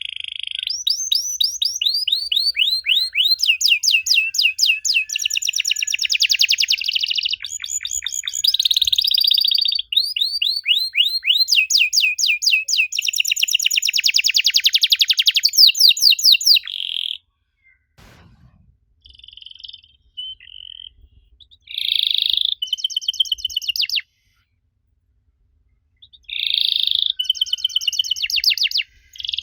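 Domestic canary singing: long runs of fast repeated trills and held whistled notes, then after about two-thirds of the way through only a few short scattered phrases and a brief pause before the song starts up again near the end.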